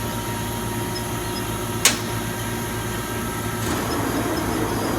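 Steady machine hum of a Mazak Super Turbo X48 CO2 laser cutter running under power, with one sharp click about two seconds in and a slight rise in level near the end.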